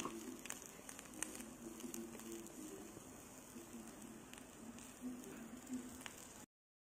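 Egg-dipped bread frying in a non-stick pan: a soft, steady sizzle with scattered small pops, over a faint low hum. The sound cuts off suddenly near the end.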